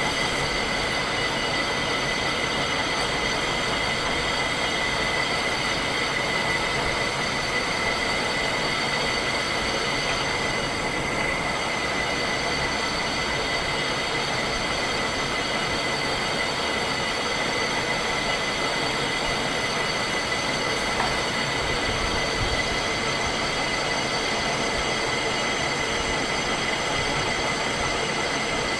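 Metal lathe running steadily while turning a spur gear blank, with a constant high-pitched whine over the machine noise.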